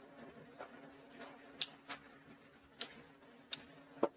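About five short, sharp clicks and light taps spread over a few seconds: pocket knives being handled and set down against each other, over a faint steady hum.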